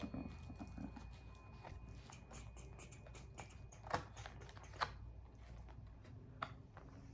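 Tarot cards being handled: a run of light clicks and taps as the cards are shuffled and turned, with two sharper snaps about four and five seconds in and another near the end.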